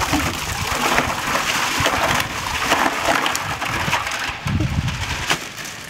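Ice cubes and water poured from a plastic bag into a plastic tub, a dense clattering rush of ice hitting ice and plastic that thins out after about four seconds.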